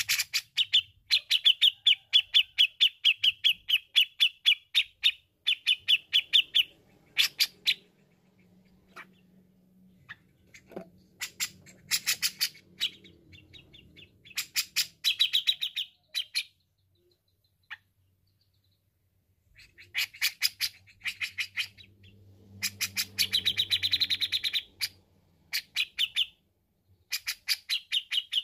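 Grey-cheeked bulbul (cucak jenggot) singing in long runs of rapid, sharp chattering notes, several a second, broken by short pauses.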